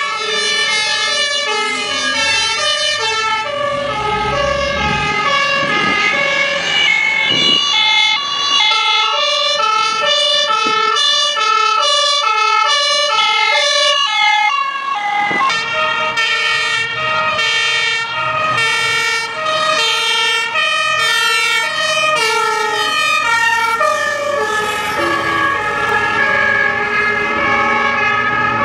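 Fire engine's two-tone siren, alternating steadily between a high and a low pitch, with a low vehicle rumble beneath in the first half. The recording changes about halfway through and the same hi-lo siren pattern continues.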